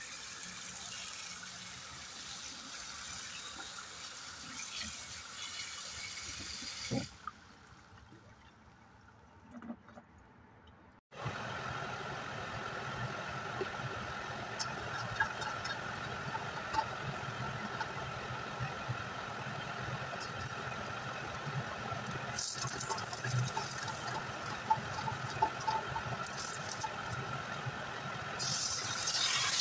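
Gas stove burner running steadily under a wok of heating oil, with faint crackles and small clicks. Near the end, garlic cloves are dropped into the hot oil and a louder sizzling hiss sets in.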